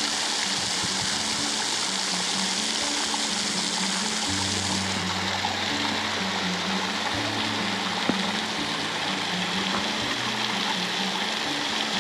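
Steady rush of a waterfall and stream, with background music of slow held low notes laid over it. A single click about eight seconds in.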